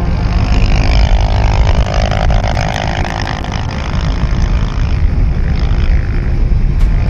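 Suzuki Hayabusa Gen 2's inline-four running at speed through a Yoshimura R-77 exhaust, with its engine note strongest in the first few seconds. Heavy wind noise sits over the microphone throughout.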